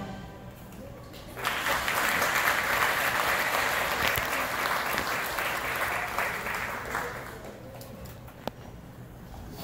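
Audience applause, starting about a second and a half in and fading away after about six seconds.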